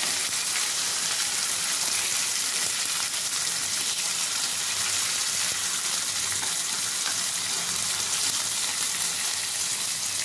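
Boneless chicken thighs frying in oil with ginger and garlic in a ridged nonstick grill pan: a steady sizzle.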